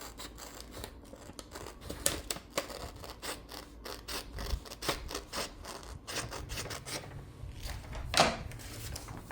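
Scissors snipping through printer paper in a run of short cuts, with one louder swish near the end.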